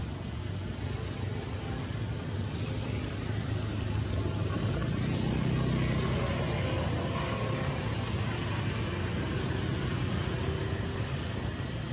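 Steady background rumble of road traffic, swelling for a few seconds around the middle as a vehicle passes.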